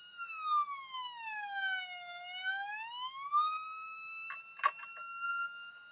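Fire engine siren holding a high note, then gliding slowly down and back up once before holding the high note again. A short burst of sharp clicks sounds about three-quarters of the way through.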